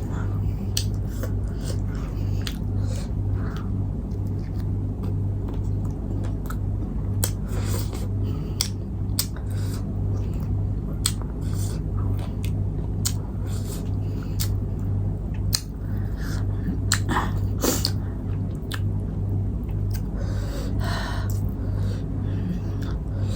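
A person chewing and eating close to the microphone, with many short wet mouth clicks and smacks, over a steady low hum.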